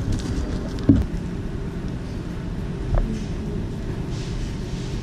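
Steady low hum of room noise with two knocks on the tabletop the camera sits on, about a second in and again about three seconds in.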